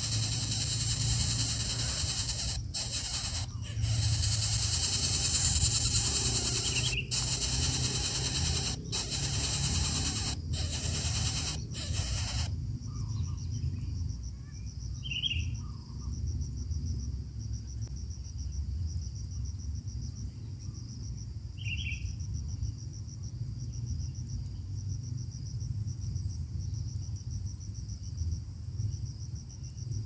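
Insects singing: a dense high buzz for about the first twelve seconds, then a fainter, rapidly pulsing trill. A few short high chirps stand out, and a low steady rumble runs underneath.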